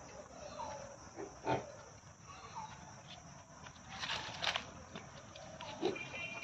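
Pigs grunting in a few short, separate calls, one about one and a half seconds in and a cluster about four seconds in.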